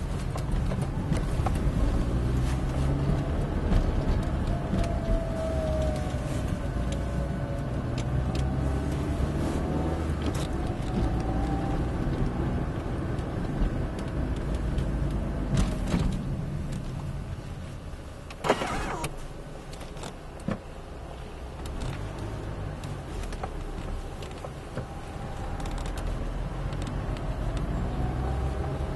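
Car engine and road noise heard from inside the cabin, the engine note rising and falling as the car speeds up and slows. It quietens for a few seconds past the middle, where a single sharp click stands out.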